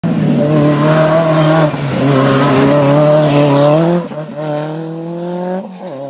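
Rally car engine revving hard, its pitch climbing, dropping at a gear change about a second and a half in, then climbing again before easing off about four seconds in, with tyre noise on loose gravel.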